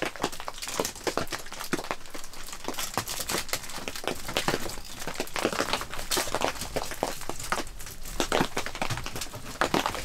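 Crinkling and crackling of shiny tape or foil being wrapped and pressed by hand around a metal stovepipe, in irregular rustles throughout.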